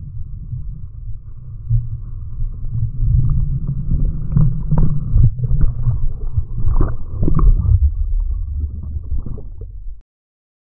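Muffled rushing whitewater and splashing against a waterproof action camera's housing, a heavy low rumble broken by sharp splashes that grow louder about three seconds in. It cuts off suddenly near the end.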